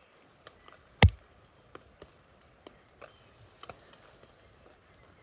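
Scattered drops tapping irregularly on a nylon tarp overhead, with one loud knock about a second in.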